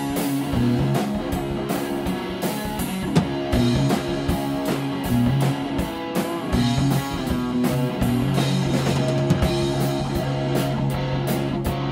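Rock music with guitar and a drum kit: held guitar notes over a bass line and a steady drum beat.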